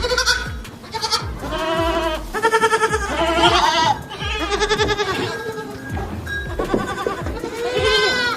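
Goats bleating again and again, some calls wavering, over background music with a steady beat.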